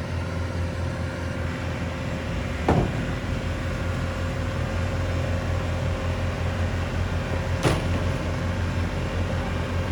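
An engine running steadily at an even speed, with two sharp knocks about five seconds apart.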